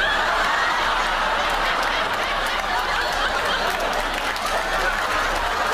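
Studio audience laughing hard, with some clapping mixed in.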